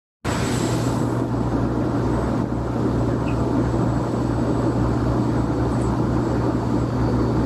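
Steady low machine-like hum with a rushing background noise and a faint high whine, unchanging throughout; no speech.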